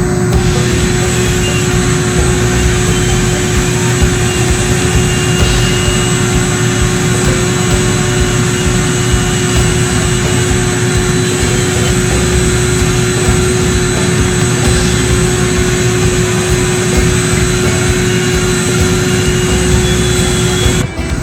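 Vacuum running steadily while hooked to the dryer vent duct: a constant rushing of air with a steady hum through it.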